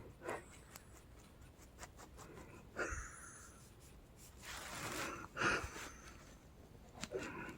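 Hard, labored breathing: a handful of noisy breaths, spaced irregularly a second or two apart. The wheezing has subsided and only the hard breathing is left.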